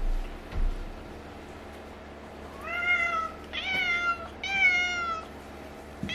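A newborn kitten mewing three times in quick succession: high, arching cries, each under a second long. Two soft low bumps come at the start as the kitten is handled in the box.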